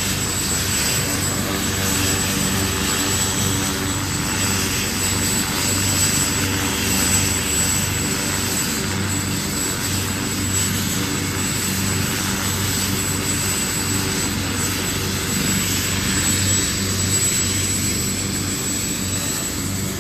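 Helicopter running steadily, a constant low drone with a hiss over it.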